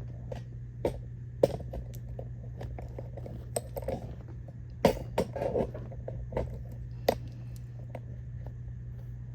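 Small metal lock parts being handled on a hard surface: scattered light clicks and taps, a few sharper than the rest.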